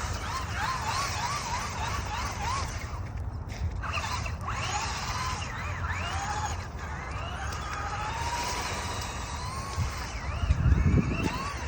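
Electric motor of an off-road RC car whining, its pitch rising and falling again and again as the throttle is worked, over a steady low rumble. There is a louder low thump near the end.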